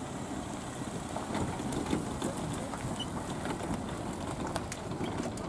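Wind buffeting the microphone in a steady low rumble, with scattered faint clicks.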